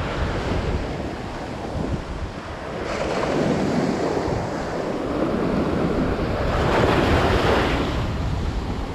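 Ocean surf washing up on the beach, swelling about three seconds in and again near the end, with wind buffeting the microphone.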